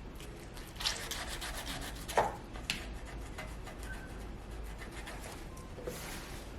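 Lemon and salt scrubbed back and forth on the copper of a fireplace, a gritty rubbing in repeated strokes. The salt acts as an abrasive to clean off the tarnish.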